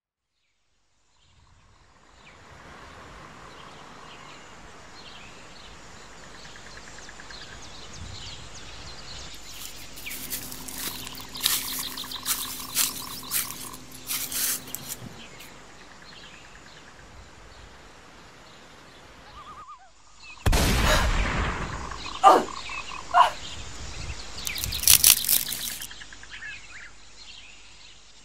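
Outdoor nature ambience of birds chirping over a steady background. It is broken by several loud noisy bursts midway and a sudden loud crash-like sound about twenty seconds in, followed by a few more sharp bursts.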